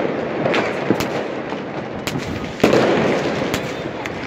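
Fireworks going off across a city: a constant crackle with many sharp pops, and one heavier boom about two and a half seconds in.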